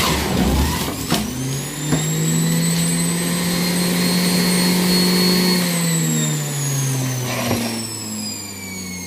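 Electric juicer's motor running with a steady whine, its pitch sliding down from about six seconds in as the motor slows, with a few short knocks early on and near the end.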